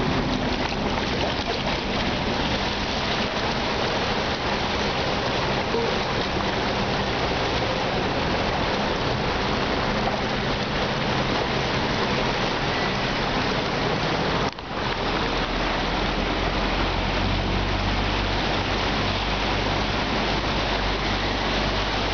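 Steady rush and splash of churned floodwater as a bus ploughs through a flooded road. It breaks off for a moment about two-thirds through, and after that the bus's low engine hum runs under the water noise.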